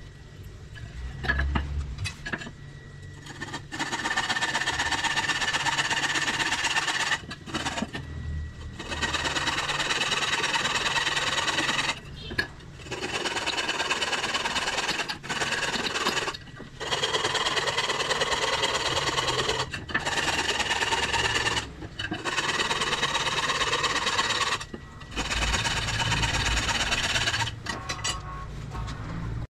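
A power tool running in repeated bursts of a few seconds, with short stops between them.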